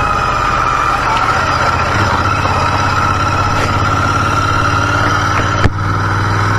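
Royal Enfield motorcycle engine running steadily while riding, with one brief sharp break about five and a half seconds in.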